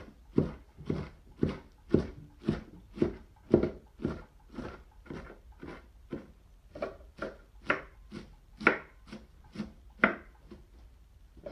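Large kitchen knife chopping freshly picked cabbage on a wooden board, a steady rhythm of about two chops a second with a short pause near the end.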